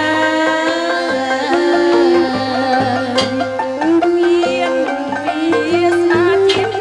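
Lakhon Basak theatre music: a traditional ensemble playing a held, wavering melody over drum strokes.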